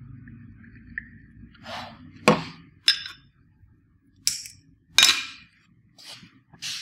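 Barber's hands striking during a head and neck massage: about seven sharp slaps at irregular spacing, the loudest two about two seconds and five seconds in.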